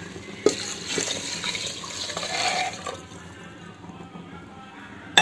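Coconut milk poured into an aluminium pressure cooker over rice, a splashing pour lasting about two and a half seconds that then trails off. A sharp metal clink about half a second in.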